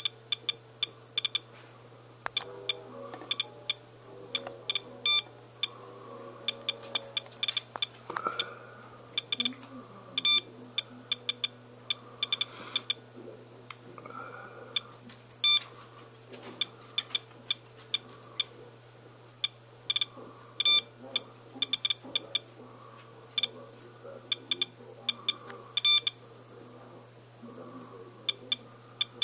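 SOEKS household Geiger counter beeping irregularly: short, high beeps come at random, sometimes several in quick succession. Each beep is a detected count at a reading of about 1 microsievert per hour, roughly eight to ten times background. The owner takes this for radioactive fallout in the rain.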